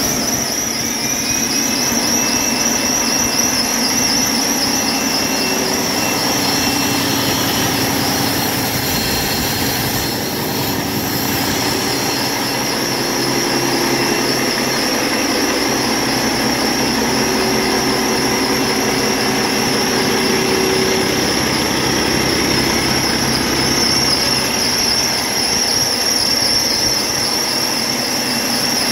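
2015 Cummins ISX15 inline-six diesel engine running steadily on a test stand, with a steady high-pitched whine over the engine sound; it runs well.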